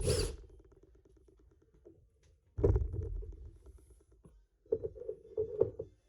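Handling noise from metal car parts and tools on a work surface: a clunk about two and a half seconds in, then a short run of light knocks and rattles near the end.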